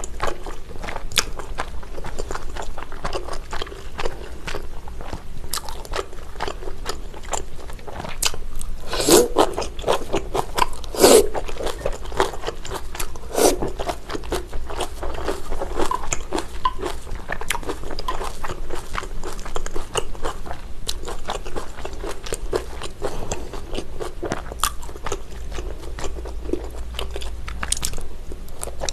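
Close-miked eating sounds: crunchy bites and wet chewing of cabbage kimchi and chewy rice-cake tteokbokki in black-bean sauce, a steady run of small clicks and smacks. A few louder crunches come about nine to fourteen seconds in.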